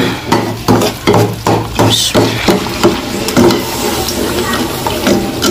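Metal spoon knocking and scraping against a steel bowl, about three knocks a second, as khoya is scraped out into the pan. After about three seconds this gives way to the steady hiss of the hot semolina-and-syrup mixture being stirred.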